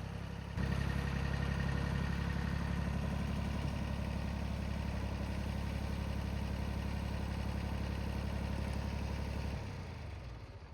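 Tractor engine running steadily, rising in level about half a second in, then dying away near the end.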